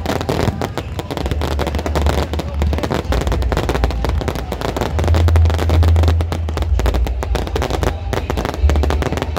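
Fireworks barrage: a dense, unbroken stream of overlapping bangs and crackling from many shells going off at once, over a deep rumble.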